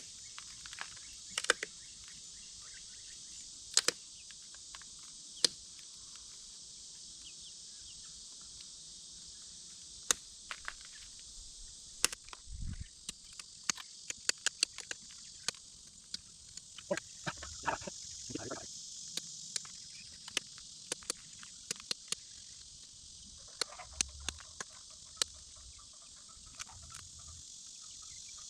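Sharp irregular clicks of small flakes snapping off a piece of glass being knapped into an arrowhead, the notches being worked in, sparse at first and coming faster from about halfway through. A steady chirring of insects runs underneath.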